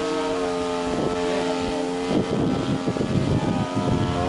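Engine and propeller of a radio-controlled S.E.5a scale model biplane running steadily in flight, a steady drone; from about two seconds in, wind buffets the microphone over it.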